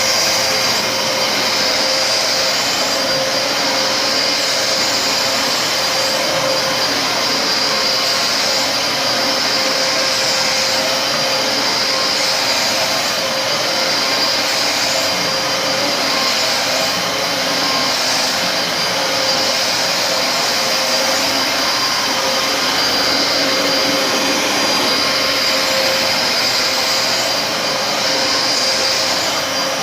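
Dyson DC33 upright bagless vacuum cleaner running steadily: a loud, even motor and airflow noise with a high whine over it.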